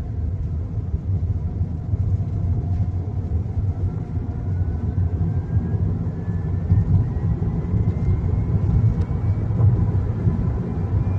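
Chery Arrizo 6 car on the move: a steady low rumble with a faint whine that rises slowly in pitch, the abnormal noise the owner is recording.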